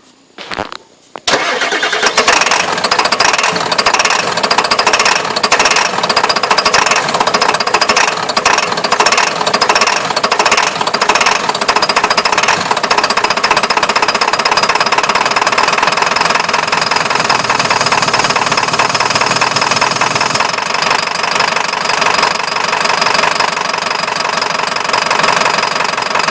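Ford 7.3-litre V8 engine being cranked over at length on a hard start. After a couple of short bursts in the first second, it turns over with a continuous fast pulsing that goes on for more than twenty seconds.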